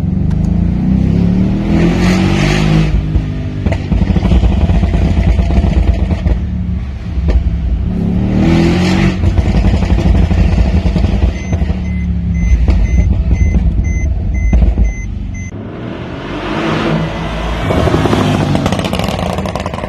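Tuned 2016 Mercedes-Benz CLS63 AMG's twin-turbo V8 accelerating hard, its pitch rising through the revs three times. Its exhaust crackles and pops between the pulls.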